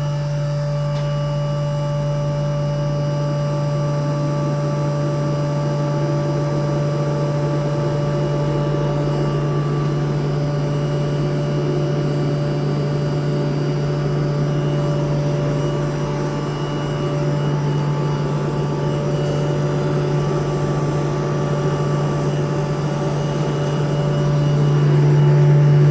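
Vemag ROBOT HP 10C vacuum filling machine running: a steady machine hum with a few fixed whining tones above it, growing louder near the end.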